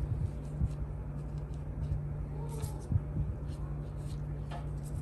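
A steady low hum, with faint soft taps and plastic rustles from a gloved hand dropping crumbled cheese onto raw dough.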